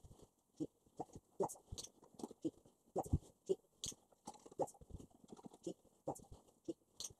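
An Australian Shepherd taking treats from a hand and shifting about on a hard floor: a run of short, irregular clicks and taps, about two or three a second.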